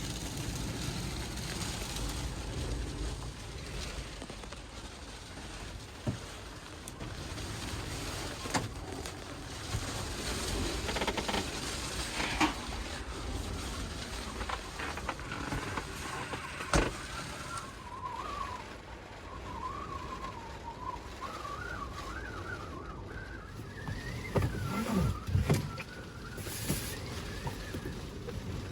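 Storm wind buffeting a kei van, with a steady rumble, a few sharp knocks and, from about halfway, a wavering whistle.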